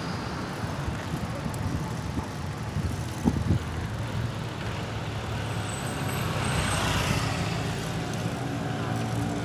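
Street traffic: a motor vehicle engine running steadily close by, with a sharp knock about a third of the way in and a vehicle swelling past a little after the middle.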